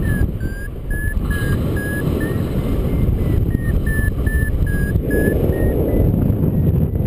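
Wind rushing over the microphone in paraglider flight, with a variometer's short climb-tone beeps at about two a second, their pitch wavering slightly. The beeps thin out and stop near the end.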